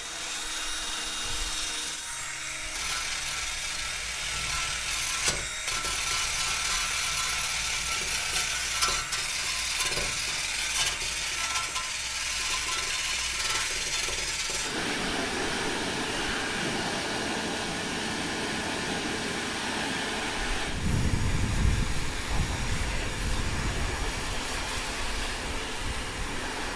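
Wire brush scrubbing loose, flaking paint off metal furniture: a steady scratchy noise with occasional sharp ticks. About fifteen seconds in it changes to a fuller rushing noise, which gets heavier and lower from about twenty seconds.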